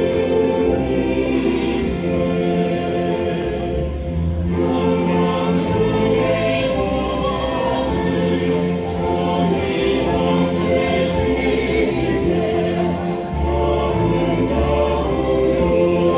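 A choir singing a sacred Christmas piece, the voices held in long chords over an instrumental accompaniment with a low bass line.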